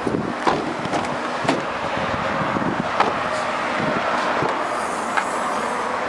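Footsteps on a gritty, salted parking lot, a few scattered scuffs and knocks, over steady outdoor noise.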